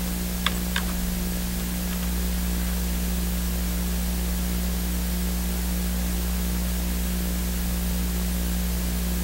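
Steady hiss with a low electrical mains hum from the recording setup, and two faint clicks about half a second in.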